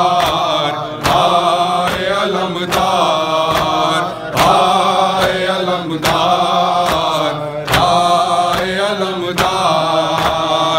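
A noha, an Urdu mourning elegy, chanted by voices in long held, wavering lines, with a sharp slap about once a second: the chest-beating (matam) that keeps the noha's beat.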